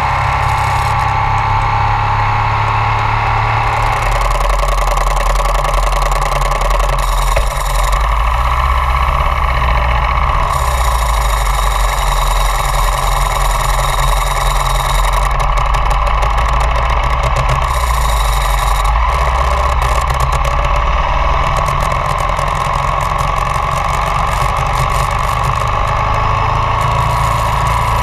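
2002 Ducati ST4s's V-twin engine running while the motorcycle is ridden, its note shifting up and down several times as the revs change.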